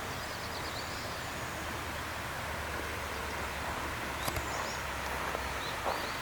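Outdoor lakeside ambience: a steady hiss with a low rumble that fades out about five seconds in, and small birds giving faint short high chirps several times. A sharp click a little past four seconds in, and a few light ticks near the end.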